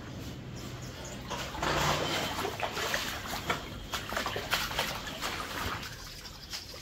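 Water splashing and trickling on wet ground, with scattered clicks and knocks; it grows louder about one and a half seconds in and fades near the end.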